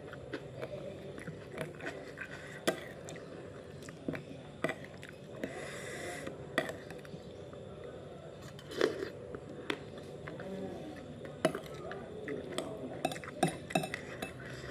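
Close-up eating sounds: chewing spoonfuls of rice and soup, with a metal spoon clinking and scraping against a ceramic plate in several sharp clicks, a quick cluster of them near the end.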